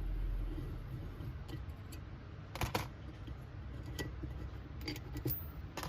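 A few light clicks and taps of steel parts being handled on a flat machine vise and its hex wrench, the loudest a short double clack about two and a half seconds in, over a low steady hum.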